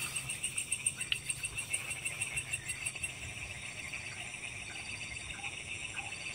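Crickets chirping in a fast, pulsing chorus. One high, rapid trill stops about three seconds in while a lower trill carries on.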